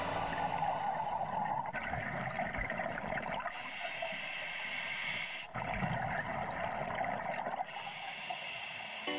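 Scuba diver breathing through a regulator underwater: exhaled bubbles gurgle, and two long hisses of inhaled air, about two seconds each, come roughly four seconds apart.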